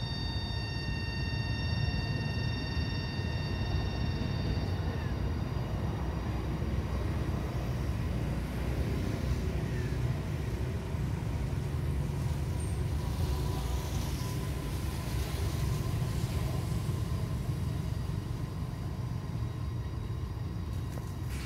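Steady low outdoor rumble, with a faint high-pitched whine of several steady tones that fades out a few seconds in.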